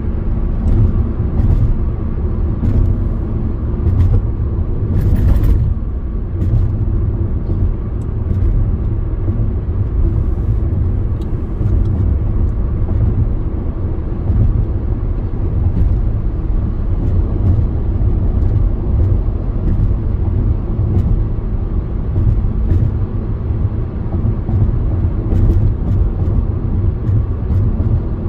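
Car driving at highway speed: a steady low rumble of road and engine noise with scattered light clicks, and a brief hiss about five seconds in.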